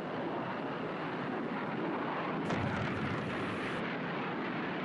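Steady aircraft engine noise, an even rushing sound with a slight low swell about halfway through.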